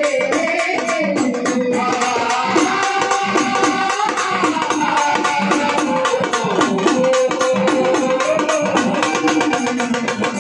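Marathi folk music: a fast, steady beat on the dimdi frame drum under a sustained pitched melody line.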